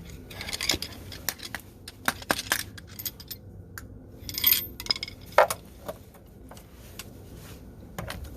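Scattered metallic clinks and scrapes of steel lug nuts and a socket being handled while a wheel comes off, with a louder clatter and a sharp knock about halfway through.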